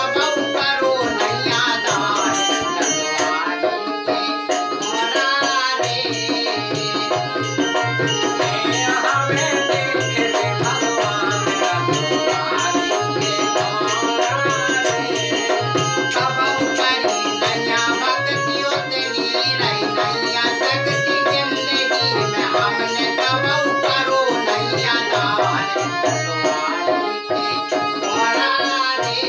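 Bundeli folk music: a harmonium playing the melody over a steady dholak drum beat, with small hand cymbals jingling along.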